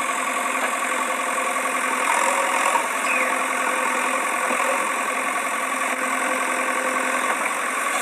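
A steady engine-idling sound effect, thin with no deep rumble, running evenly with a faint knock in it.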